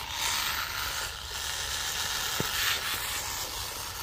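Kyosho Sand Master 2.0 RC buggy driven hard through wet snow: its electric drivetrain running with a loud, chattery gearbox noise that swells and eases with the throttle. The owner is unsure whether that much gearbox chatter is normal.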